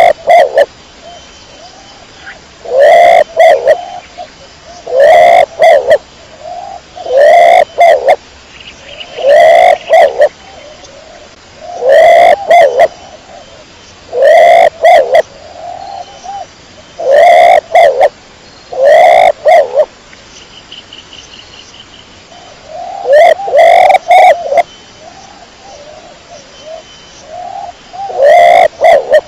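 Domestic pigeon cooing: a loud coo repeated about every two seconds, with a pause of about three seconds past the middle.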